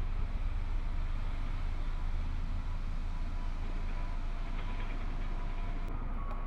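Steady low rumble with a faint hiss, with no distinct knocks or other events.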